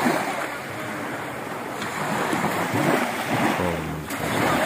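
Small sea waves breaking and washing up over a dark sand and pebble shore, with a surge of surf right at the start.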